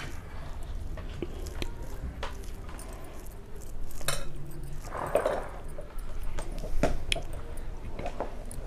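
Fingers mixing rice with mango dal and pickle on a plate: soft squishing with scattered small clicks and taps against the plate, picked up close by a clip-on microphone.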